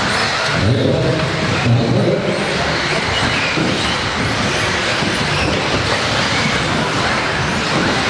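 1/10-scale electric 2WD modified off-road buggies racing on an indoor carpet track: a continuous mix of motor whine and tyre noise.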